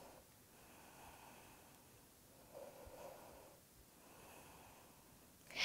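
Near silence with a few faint, soft breaths, and a louder breath just before the end.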